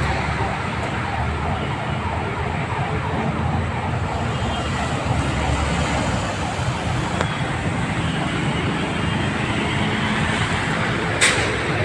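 Road traffic noise from motorcycles and cars in stalled, rain-hit traffic: engines running with a steady rumble. A short sharp click near the end.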